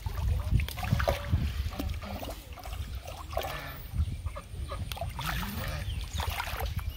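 Shallow muddy water splashing and sloshing as a child wades and grabs at a carp with bare hands, irregular splashes over a steady low rumble.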